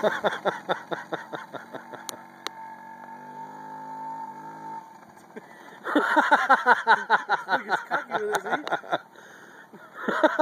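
A small dirt bike's engine running in a fast, sputtering pulse that swells loud and fades back to a quieter steady drone a few times as the bike is ridden.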